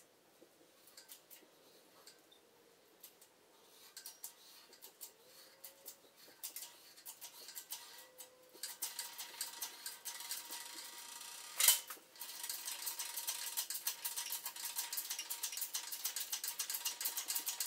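Hydraulic pipe bender's hand pump being worked stroke by stroke as it bends steel electrical conduit with rebar inside, giving quiet metallic clicks and rattles. The clicks grow louder and busier about halfway through. About two-thirds of the way in comes one sharp snap, the loudest sound in the clip.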